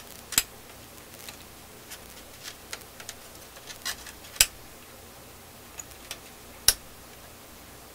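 Small metal clicks and ticks from needle-nose pliers working a capacitor's wire leads on a tube radio chassis, with three sharper snaps: about half a second in, a little past halfway, and about two-thirds through.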